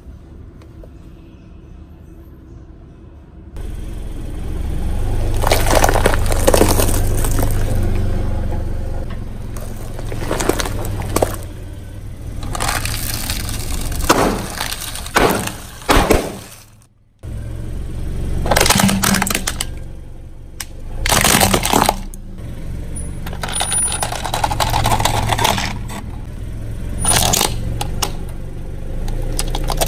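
A car tyre rolling over objects and crushing them: repeated crunching, cracking and crackling over the low rumble of the car, starting about three and a half seconds in, with a brief silence about seventeen seconds in.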